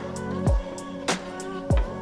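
Background music with a steady beat: a deep, falling kick drum and a crisp snare over held chords.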